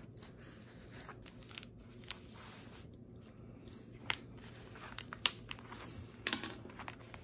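Mail package being torn open by hand along its built-in tear strip: rustling and crinkling with scattered sharp clicks and crackles, the loudest about four to six seconds in.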